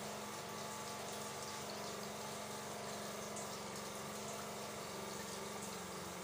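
Water running steadily, with a constant low hum underneath.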